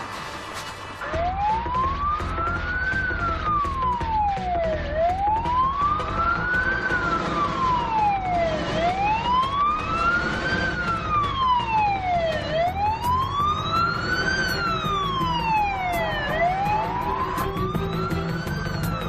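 Police car siren wailing, rising and falling slowly and evenly, about four seconds per cycle, over the low rumble of traffic. It starts about a second in.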